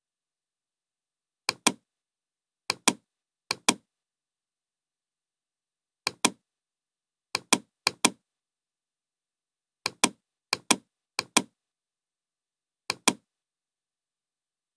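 Computer mouse button clicks, each a quick press-and-release pair, about ten of them spaced unevenly with dead silence between.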